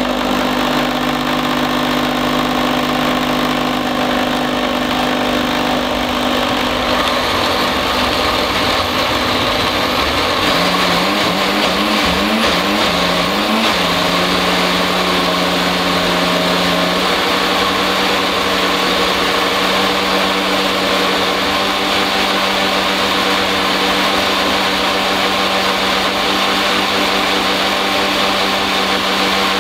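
Countertop jug blender running continuously, a steady, loud motor whine as it purées basil, nuts and olive oil into pesto. About a third of the way in the pitch wavers for a few seconds, then settles slightly lower.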